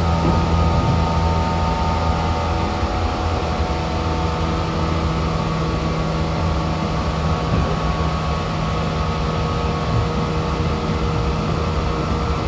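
Running sound inside a JR Kyushu 415 series 500-subseries electric multiple unit motor car at steady speed. The running gear hums on several steady tones that hold their pitch, over the rumble of wheels on rail.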